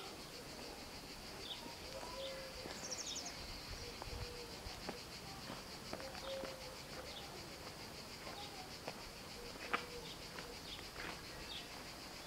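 Cicadas buzzing steadily in a high, fast-pulsing drone, with scattered short bird chirps over it.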